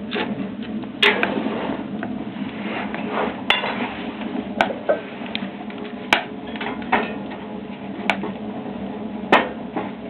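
Wood fire crackling in a homemade potbelly stove, a steady fine crackle with about six sharp pops spread through it.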